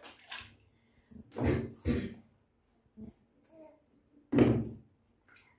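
Water splashing and knocking in a plastic baby bathtub as a newborn is washed by hand: two short splashes about a second and a half in, then a louder one past four seconds.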